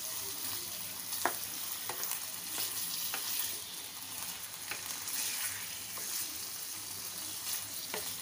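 Raw chicken pieces sizzling as they fry in hot oil, with a wooden spatula stirring them and clicking against the pan every second or so.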